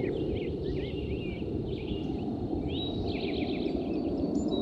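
Birds chirping and twittering over a steady low background rumble, with a thin held whistle late on.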